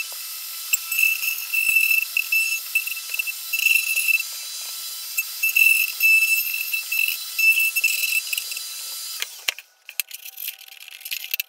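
Plunge router running at high speed with a steady high whine, growing louder and easing off irregularly as the bit cuts. It stops abruptly about nine seconds in, followed by light clicking and rattling.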